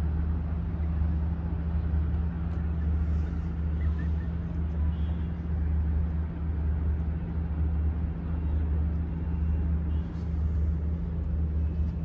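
A steady low mechanical hum, like an engine or machinery running, holding an even pitch throughout, with faint scattered sounds above it.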